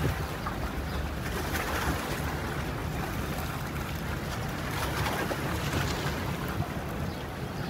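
A boat's engine running with a steady low hum, under a hiss of wind and water that swells now and then.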